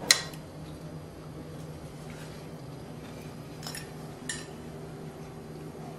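Dishes and utensils clinking while food is served: a sharp clink right at the start and two lighter ones about four seconds in, over a steady low hum.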